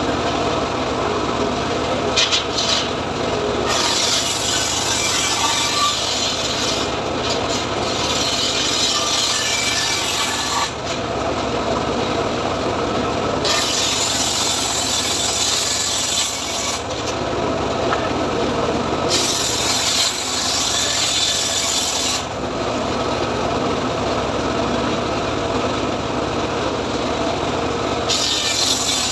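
Homemade engine-driven circular saw bench (gergaji srekel) ripping teak planks: the engine and blade run steadily, and four times the blade cuts through the wood with a harsh, high hiss, the first cut about seven seconds long, the next two about three seconds each, the last starting near the end.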